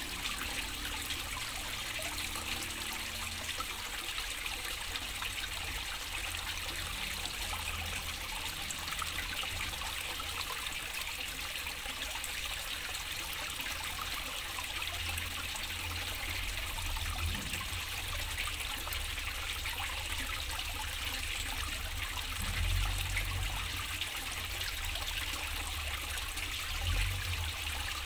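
Water falling in thin streams from a pipe into a small garden fish pond, a steady trickling splash. A couple of brief low rumbles come through about three-quarters of the way in and near the end.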